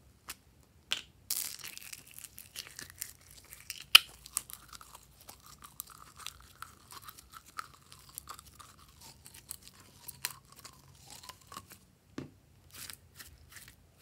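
Soft plastic slime bottle crackling and clicking as it is squeezed, with glitter slime pushed out of its neck; a faint wavering squeak runs through the middle of it.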